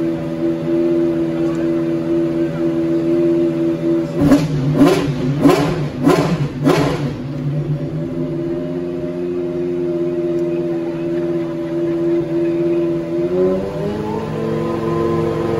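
McLaren Solus GT's naturally aspirated V10 idling, then blipped hard five times in quick succession about four seconds in. It settles back to idle, then is held at higher revs near the end.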